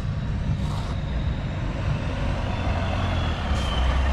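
Diesel engine of a large excavator running steadily, growing louder and deeper about three and a half seconds in, with two brief hisses: one about a second in and one near the end.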